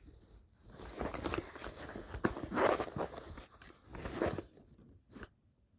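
Small hand tools and their packaging being handled: irregular rustling with a few light clicks and knocks, in several short bursts.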